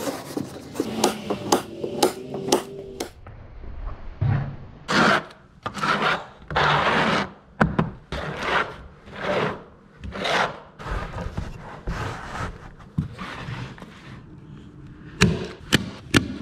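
Carpet being rubbed and dragged across an OSB subfloor in a run of swishing strokes. Near the end come several sharp clacks from a DeWalt hand staple gun fixing the carpet edge.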